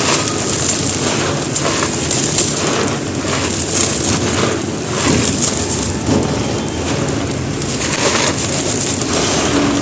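Dry, gritty white concrete being crumbled close up: a dense, continuous crunching crackle made of many small grainy clicks.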